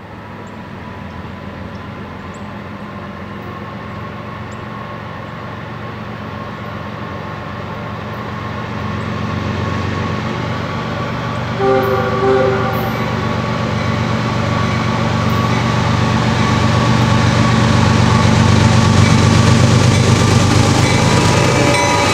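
CSX freight train's diesel locomotives approaching, their engine drone growing steadily louder, with two short horn blasts about halfway through. The lead units pass close by near the end.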